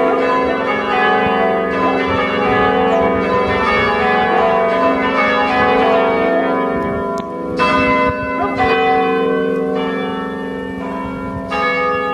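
Ring of five church bells, an 1854 Taylor ring with a tenor in E, heard from outside the tower while being lowered. Dense, overlapping strikes give way to fewer, separate strikes about a second apart in the second half.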